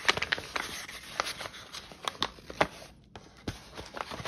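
Paper and card being handled on a work table: irregular rustles, taps and small clicks, the loudest near the start and at about two and a half seconds.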